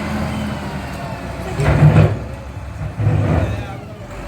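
A heavy vehicle's engine running steadily, with two loud noisy bursts, the first about one and a half seconds in and the second about three seconds in.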